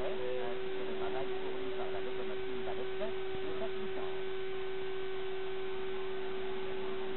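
A steady single-pitched hum over constant hiss, the tone and noise of the archive transfer's soundtrack rather than any sound of the trains. Faint short chirps come and go in the first half.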